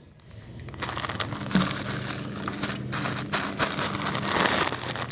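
Close rustling and crackling starting about a second in, as of the phone being handled and shifted on the cloth-covered table.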